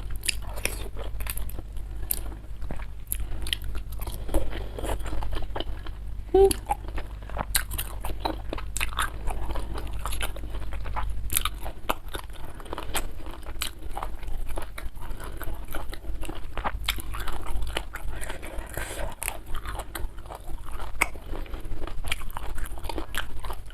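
Close-miked eating: a person biting and chewing crunchy food, with frequent sharp, irregular crunches and crackles.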